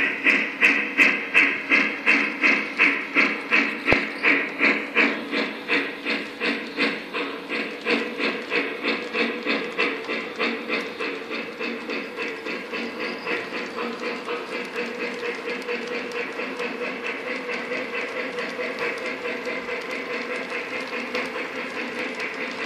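Lionel Legacy Mikado O-gauge model steam locomotive's electronic sound system chuffing in an even rhythm, about two to three chuffs a second, over the steady rolling of the train on the track. The chuffs grow fainter after about ten seconds as the engine pulls its freight cars past.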